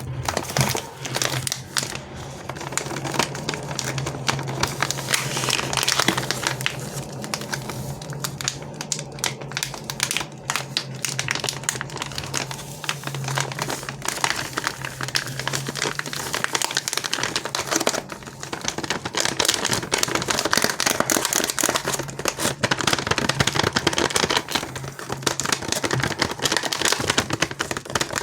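Candy and chocolate wrappers crinkling and crackling as sweets are unwrapped and handled, a dense, continuous run of small crackles.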